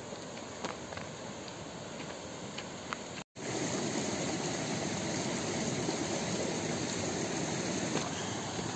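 Footsteps crunching on a stony dirt trail over a faint background hiss. After a cut about a third of the way in, the steady, louder rush of a fast mountain stream flowing over rocks takes over.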